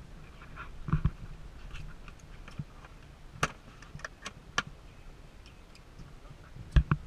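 Knocks and sharp clicks on a fibreglass boat while a caught fish is handled at the gunwale: a heavier thump about a second in and another near the end, with a few light clicks in between.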